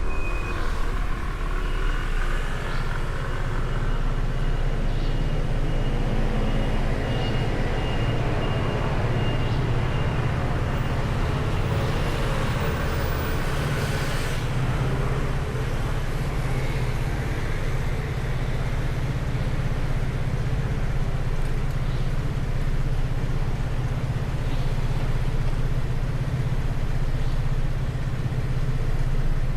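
Steady road-vehicle noise in traffic: a continuous low engine hum under an even rush of road noise, with a brief louder rush about halfway through.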